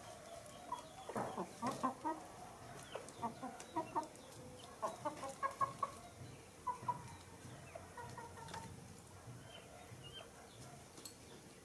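Chickens clucking: a run of short clucks, most of them between about one and six seconds in, then sparser.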